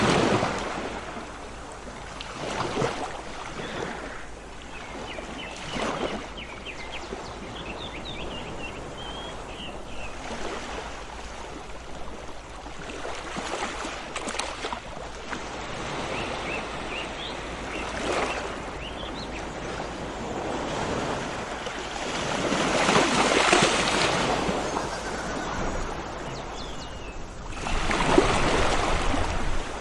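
Sea waves washing in and drawing back in repeated surges every few seconds, the biggest near two-thirds through and again near the end. Small birds chirp faintly here and there in the first half.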